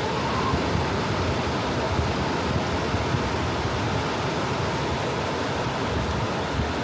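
Soft ocean waves washing on a beach: a steady hiss of surf without distinct breaks, with a low rumble underneath.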